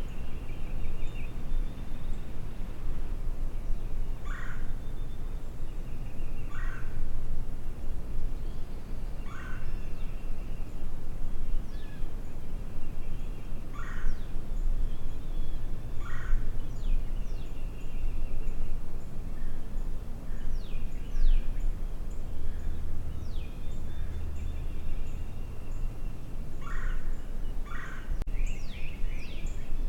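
Wild turkey gobbling about seven times, each a short burst, with smaller songbirds trilling and calling in between and a steady rumble of wind on the microphone.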